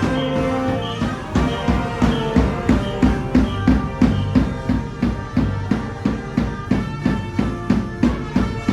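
Live band music for a Taiwanese funeral: sustained melody notes over a steady drum beat of about three beats a second, which sets in about a second in.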